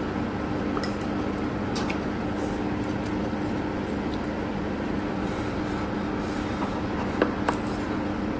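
Steady low hum with a hiss beneath it, and a few light clicks of chopsticks against a bowl, two of them close together near the end.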